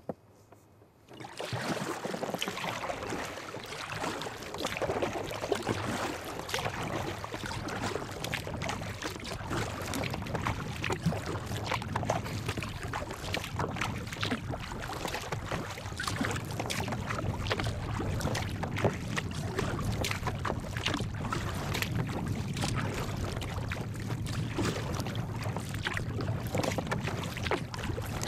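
Water splashing and slapping against the hull of a Current Designs Storm sea kayak as it moves through light chop, a dense run of small splashes over a steady wash. It begins about a second in.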